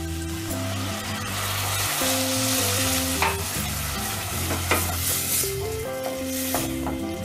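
Hot water poured into a stainless steel pot of sautéed tomatoes and peppers, sizzling on the hot base. A wooden spoon stirs it, knocking against the pot several times from about halfway in.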